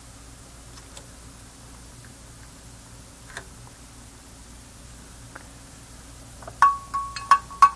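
About four sharp metallic clinks in quick succession near the end, each ringing on with a clear bell-like tone, as a metal tool or part is struck against metal. Before them there is only a low steady hum and a few faint ticks.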